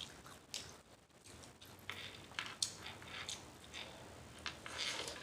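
A person chewing rice noodles with the mouth open: wet smacking clicks at irregular intervals, a few a second, thickening into a quick cluster near the end.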